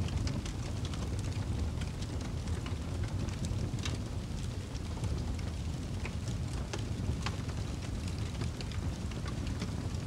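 Fireplace fire burning: a steady low rumble with frequent small, sharp crackles and pops scattered irregularly throughout.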